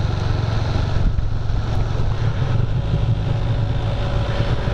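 Can-Am Spyder F3's three-cylinder engine running steadily at low road speed, under an even rush of wind and road noise.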